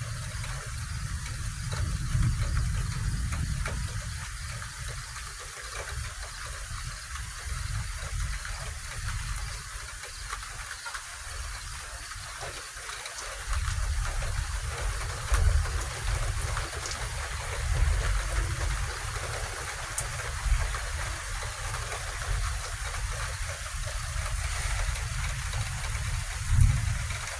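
Heavy rain falling steadily, with a low rumble underneath that swells and fades several times.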